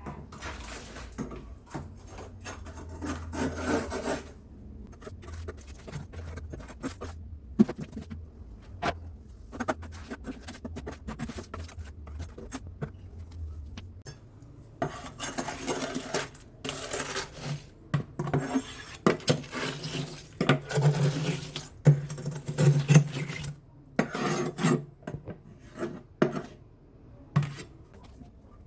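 Irregular scraping, rubbing and clattering of hands working inside a fridge while cleaning it out, with items knocking against one another. A low hum underneath stops about halfway through.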